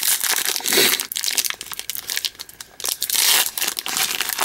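Foil wrapper of a football card pack crinkling and tearing as hands pull it open. The crackle is loudest near the start and again about three seconds in.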